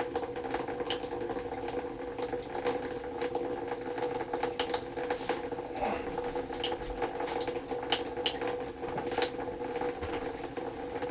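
Water and air sputtering and gurgling out through household plumbing under compressed-air pressure, driving sediment-laden water out of a water heater being flushed. Irregular pops and crackles sit over a steady hum.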